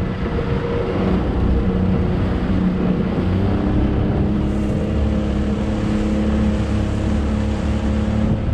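Motorboat engine running steadily while the boat is under way, a constant hum over the rush of water and wind.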